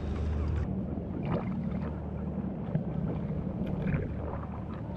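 Ambient sound on a kayak at sea: a steady low wind rumble on the microphone with water against the hull, and a few faint knocks.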